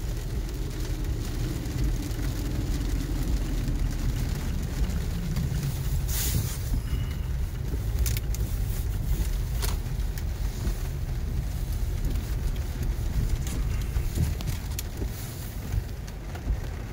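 A car driving, heard from inside the cabin: a steady low rumble of engine and tyres on a snowy road, with a few short clicks along the way.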